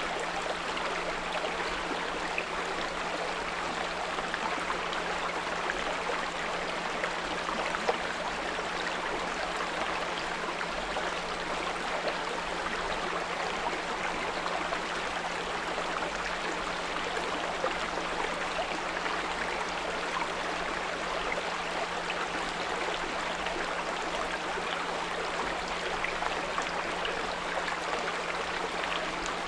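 A small brook flowing steadily, its water trickling and babbling, with a continuous low 174 Hz pure tone held underneath.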